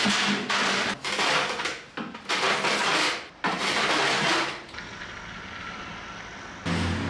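Metal hand plane shaving a wooden pole held in a vise: four long strokes of about a second each, then a quieter stretch near the end.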